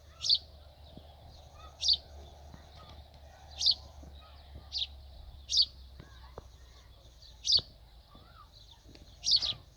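A small bird chirping, one loud, short, high chirp every second or two, with fainter twittering of other birds between and a low rumble underneath.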